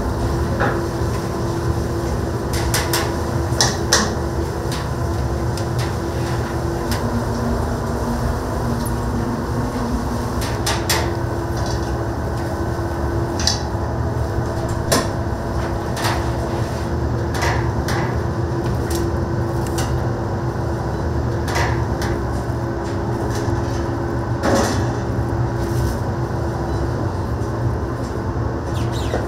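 Restaurant kitchen noise: a steady low roar with a constant hum, and scattered sharp clinks and knocks of utensils and dishes every second or two.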